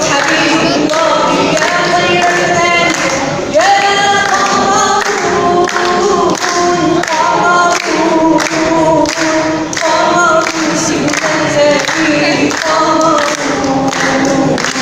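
An Arabic nasheed sung by a male lead voice over layered, choir-like backing vocals.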